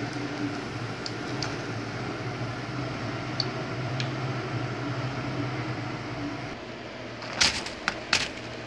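Steady hum and hiss of a kitchen frying setup, with faint crackles from hot oil after falafel have been deep-fried. Near the end come three or four sharp clicks, the loudest sounds here.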